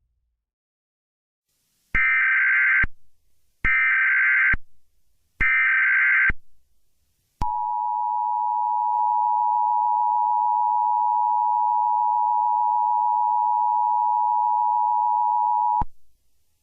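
Emergency Alert System alert tones. Three short bursts of SAME header data, each a harsh digital warble about a second long, are followed by the steady two-tone EAS attention signal (853 and 960 Hz). The attention signal holds for about eight seconds and then cuts off suddenly, announcing the alert message.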